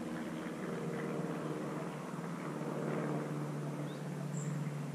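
Steady low engine-like drone holding one pitch, with two short high chirps, one near the start and one near the end.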